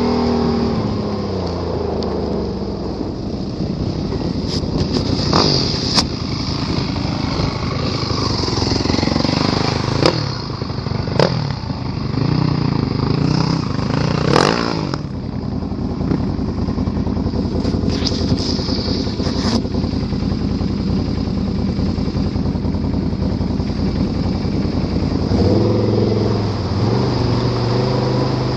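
Can-Am Renegade ATV engine running under changing throttle, its pitch rising and falling, with a rev-up near the end. Several sharp knocks and clatter come through about 6, 10, 11 and 14 seconds in.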